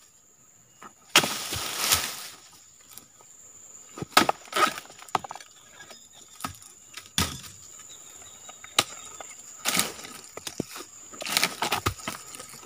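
Oil palm dodos, a chisel blade on a pole, chopping into the frond bases and fruit-bunch stalk of a low oil palm: a string of sharp strikes a second or two apart, with a longer rustle of fronds about a second in.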